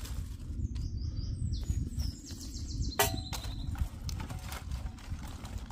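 Dry sticks and twigs being loaded by hand into a folding metal wood-burning stove: scattered clicks and knocks of wood on the metal box, with one sharp clink about three seconds in. Birds chirp in the background over a low steady rumble.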